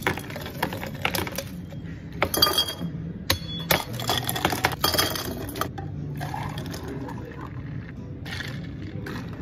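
Ice cubes poured from a metal scoop into tall drink jars, clattering and clinking, heaviest in two pours about two and four seconds in. A few lighter knocks follow near the end.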